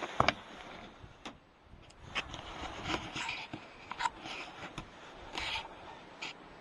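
Two sharp cracks close together near the start, then scattered clicks, rubs and scrapes of a rifle and scope being handled.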